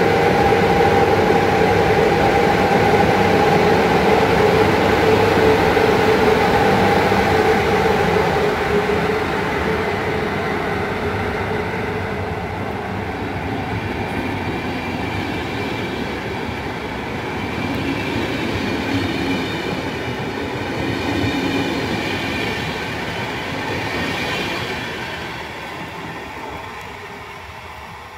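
Passenger train hauled by an electric locomotive passing close by. A steady whine is heard in the first several seconds, then the running noise and wheel clatter of the coaches on the rails, fading near the end as the train moves away.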